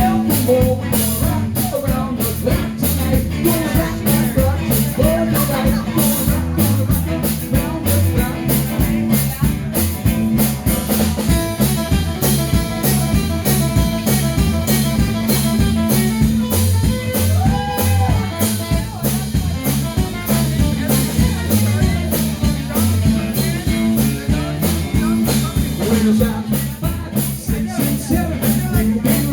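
Live band playing an upbeat blues-rock number, with a drum kit keeping a steady beat under bass and guitar.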